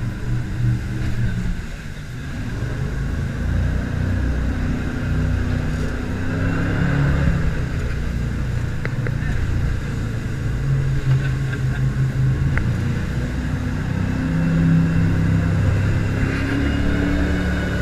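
Jet boat engine running under way, its note shifting up and down in pitch several times.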